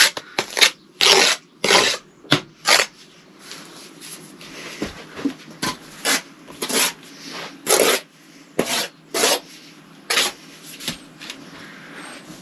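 Steel bricklaying trowel scraping sand-and-cement mortar off a mortar board and spreading it onto the end of a concrete breeze block, in a run of short, irregularly spaced scrapes.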